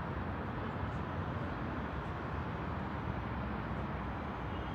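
Steady low hum of distant city traffic, an even rumble with no distinct events.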